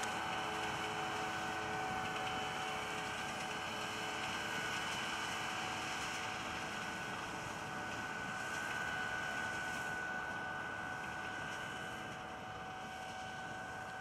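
Gomselmash Palesse 2U250A tractor's diesel engine running steadily while pulling a planter across the field, heard at a distance as a constant drone with a steady whine over it, growing a little fainter near the end as it moves away.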